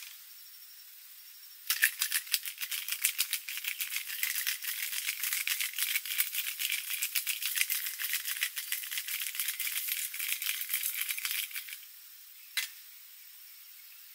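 Metal cocktail shaker shaken hard for about ten seconds, its contents rattling in a fast, even clatter. It stops abruptly, followed by a single sharp click.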